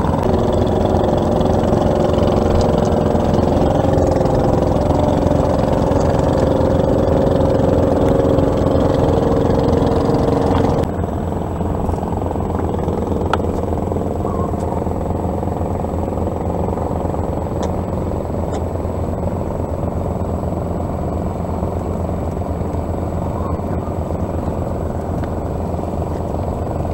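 An engine running steadily with a constant low hum; about eleven seconds in the sound changes abruptly and becomes slightly quieter.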